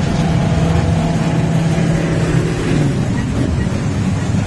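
Motorcycle engines running loud and steady as a group of motorcycles rides. One steady low engine note stands out and stops about two and a half seconds in.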